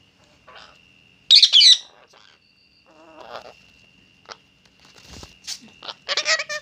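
Rose-ringed parakeet calling: two loud, harsh screeches, one about a second in and one near the end, with softer chirps between. A faint steady high tone runs underneath.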